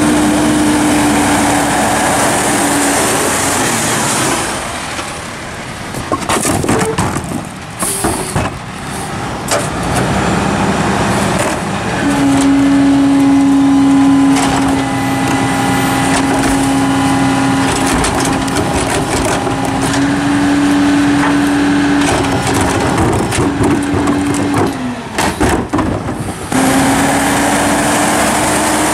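Hino-chassis New Way mini rear-load garbage truck running with a steady hum. Irregular knocks and clatter come as trash carts are tipped and emptied into the rear hopper, mostly in the first third.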